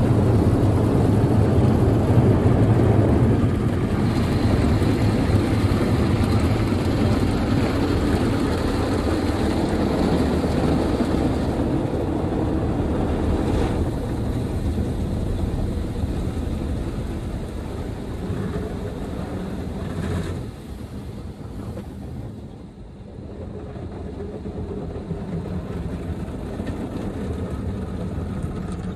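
Automatic gantry car wash machine's rotating brushes and water washing over the car, heard from inside the cabin as a steady noise that eases off about two-thirds of the way through.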